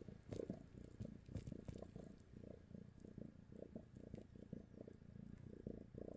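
Domestic cat purring while its chin is rubbed: a low, rapidly pulsing rumble.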